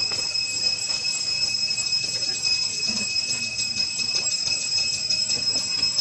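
Insects droning steadily at a high pitch with a fast, fine pulsing.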